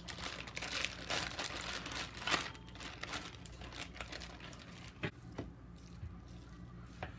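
Plastic zip-top bag crinkling as ground beef is squeezed out of it into a stainless steel pot, followed by a few short knocks about five seconds in and near the end.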